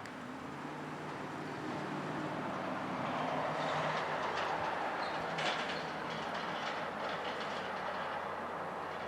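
A passing vehicle: a steady rush with a low hum that swells to a peak about four seconds in and then eases off, with rattling clicks through the middle.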